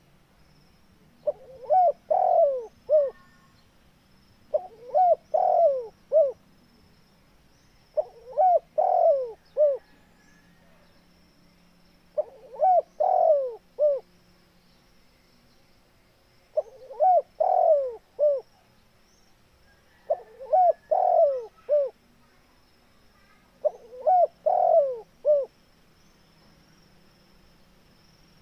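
Spotted dove cooing: seven phrases of a few short, gliding coos each, repeated evenly about every three and a half seconds.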